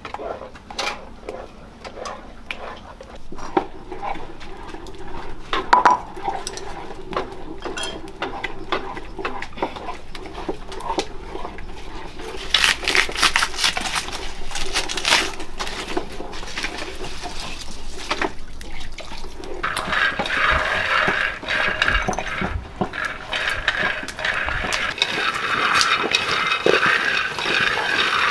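Kitchen work with pots and water: scattered clinks and knocks of pots and utensils, a busier clatter about halfway through, then water pouring steadily for the last several seconds.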